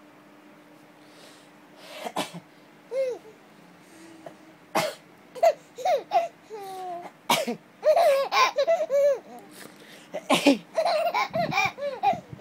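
Baby laughing and squealing in short high-pitched bursts, starting about two seconds in and coming thicker toward the end, with sharp breathy gasps between the squeals.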